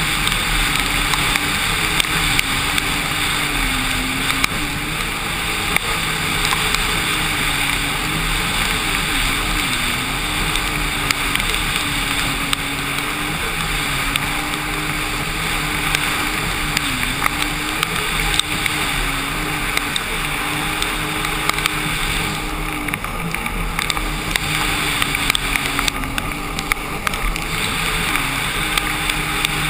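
Sea-Doo RXT-X 260 RS personal watercraft running at speed over choppy water, its supercharged Rotax three-cylinder engine holding a steady pitch that dips briefly several times as the throttle eases. Wind and spray noise run throughout, with frequent small knocks as the hull hits the chop.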